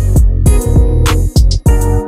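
Background music with a steady beat: low drum thumps and sharp high ticks under sustained pitched chords.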